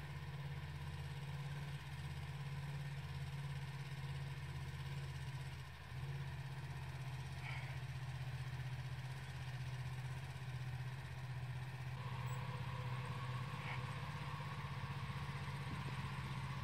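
ATV engine running steadily at low revs, a continuous low hum as the quad crawls over rock ledges.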